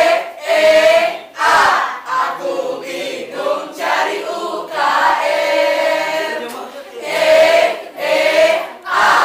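A student choir, young men and women together, singing in short phrases with brief breaks between them.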